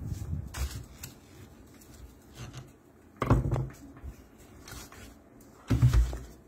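Plastic housing of a Kyocera TASKalfa developer unit being handled and pressed back together by hand: scattered light clicks, then two louder knocking clatters, one about halfway through and one near the end.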